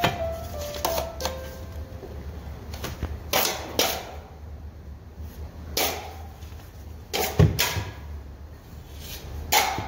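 Drywall taping knife scraping joint compound along a wall corner in several short swipes, spaced a second or two apart, as the finisher feathers the edge.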